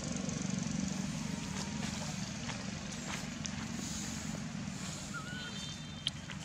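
Steady low hum of an engine running at a distance, with one short whistled call about five seconds in and a sharp click just after six seconds.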